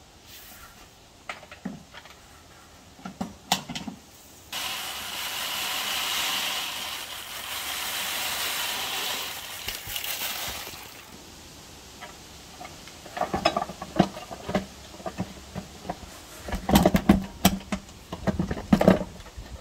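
Leftover granular ammonium sulfate fertilizer poured from the plastic hopper back into its bag: a steady hiss of running granules, starting about four and a half seconds in and lasting about six seconds. Near the end, a run of knocks and rattles as the hopper is handled at its mount.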